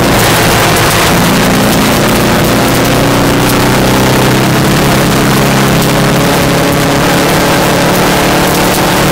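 VW Beetle rally car's engine heard from inside the car at speed, holding a steady pitch after an unsettled moment at the start, over a constant hiss of tyres on a gravel road.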